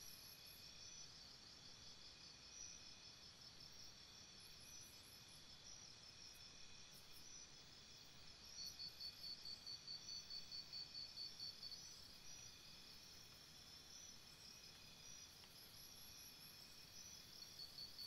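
Faint night-insect chorus: several steady high-pitched chirring trills layered together. About halfway through, a louder pulsed trill of about six beats a second joins for around three seconds.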